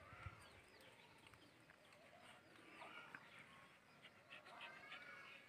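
Very quiet: a dog panting softly, with faint bird chirps in the background and one low thump near the start.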